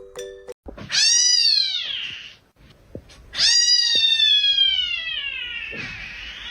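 Domestic cat meowing twice: a short meow about a second in, then a longer, drawn-out meow that falls in pitch.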